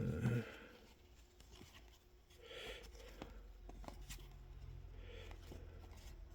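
Trading card box and packs being handled and opened: soft rustling and tearing of packaging with scattered light clicks and taps.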